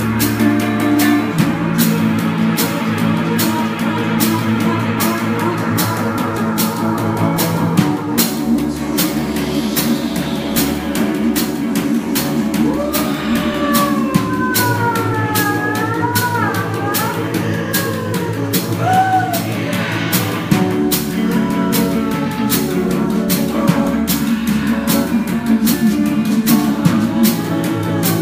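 Rock music with guitars and a steady drum beat, no words sung. Through the middle a melody line slides up and down in pitch over the band.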